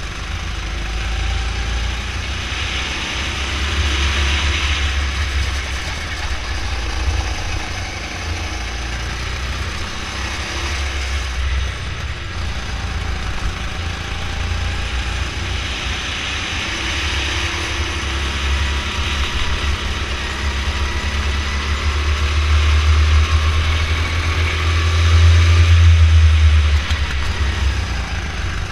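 Go-kart engine running under the driver, its note rising and falling with the throttle through the corners, over a heavy low rumble that is loudest near the end.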